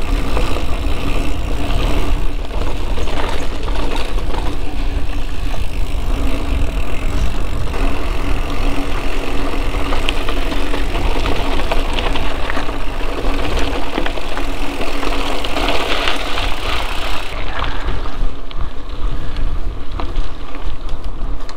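Mountain bike being ridden over a dirt trail: a steady low rumble of wind on the camera microphone, with tyre and drivetrain rattle over the ground.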